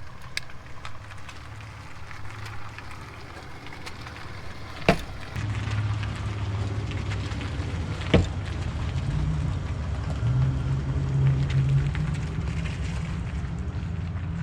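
A steady low rumble with a hum in it, growing louder about five seconds in, and two sharp clicks, about five and eight seconds in.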